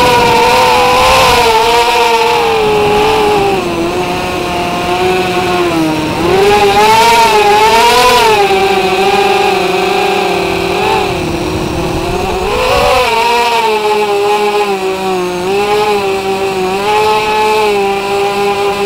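Tricopter's three electric motors and propellers whining, the pitch rising and falling as the throttle changes, heard from the onboard camera. The pitch steadies over the last few seconds.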